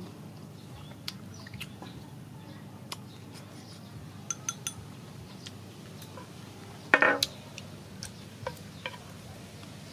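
Wooden chopsticks clinking and tapping against a ceramic bowl and a frying pan: scattered light ticks, a few ringing clinks about halfway through, and one louder knock about seven seconds in.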